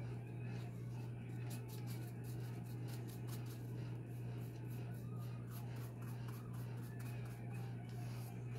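Paintbrush strokes scratching quickly and repeatedly over a mask's surface, several strokes a second, over a steady low hum.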